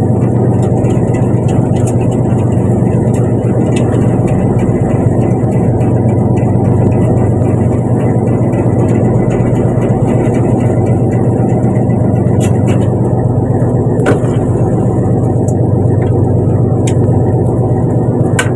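Fishing boat's engine running at a steady speed, a loud continuous low drone with no change in pitch.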